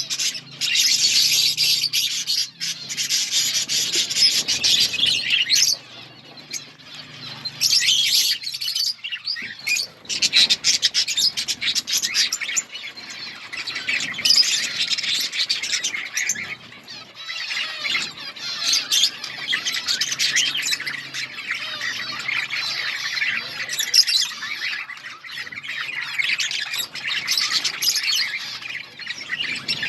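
A flock of budgerigars chattering and chirping together, a dense, continuous warble of many overlapping calls that swells and eases.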